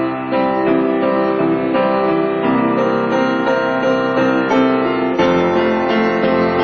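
Background piano music, a melody with sustained chords.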